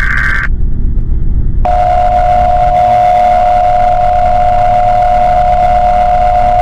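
Emergency Alert System signal: the tail of a SAME data-header burst cuts off about half a second in, and after about a second's gap a single steady attention tone sounds and holds, over a constant low rumble.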